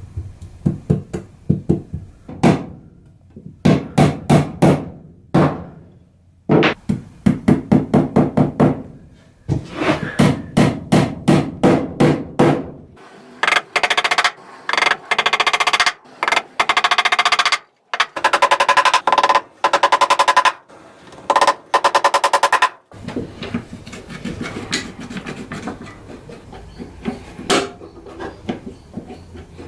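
Small cross-peen hammer tapping small nails into wood, in runs of quick, sharp taps with short pauses between. The taps come thickest in the middle, then thin out to fewer, quieter ones near the end.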